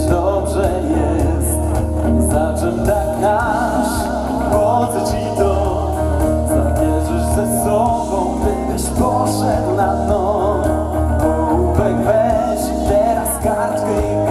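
Live pop band playing: voices singing a melody over electric guitar, a strong bass line and drums with cymbals.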